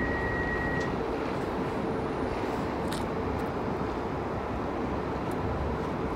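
Greater Anglia Class 755 bi-mode train standing with its diesel power pack running: a steady hum over a rumbling noise. A steady high tone stops about a second in.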